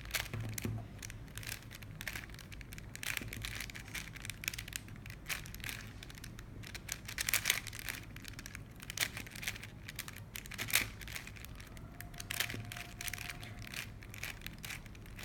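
A Rubik's Cube being twisted by hand, its plastic layers turning with a run of quick clicks and scrapes that come in irregular spurts.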